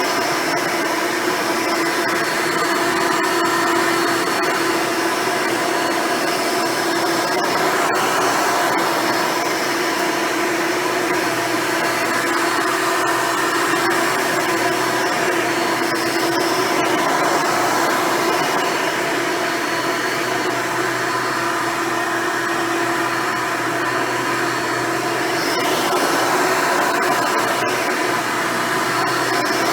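Hoover Elite upright vacuum running on carpet, its dual-row brush roll agitating the pile. The motor gives a steady whine over a wide rushing hiss that wavers only slightly.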